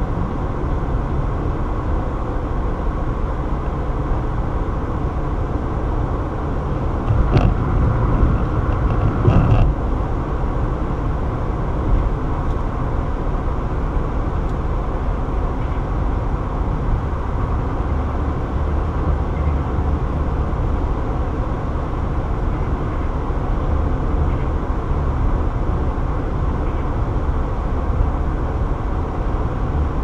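Road noise inside a car's cabin at highway speed: a steady low rumble of tyres on pavement. For a few seconds about a quarter of the way in it grows louder, with a couple of short knocks.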